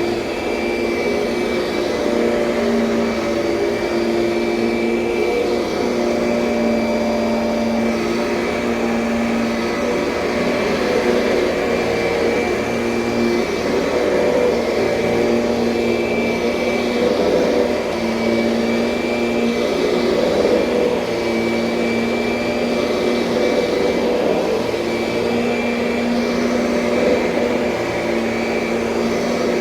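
2007 Kirby Sentria upright vacuum cleaner running steadily, its motor hum shifting slightly in pitch every couple of seconds.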